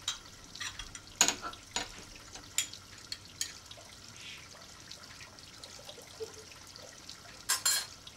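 Kitchen tap running into a stainless-steel sink during washing up, with sharp clinks and knocks of dishes now and then and a couple of louder clatters near the end.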